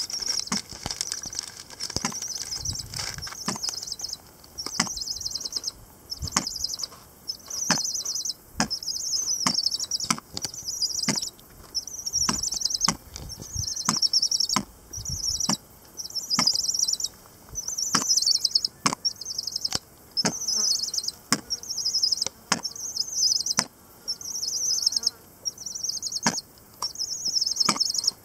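Sharp taps and clicks as weka peck at the stony ground close by. Behind them, a high insect buzz repeats in regular pulses, about one every second and a half.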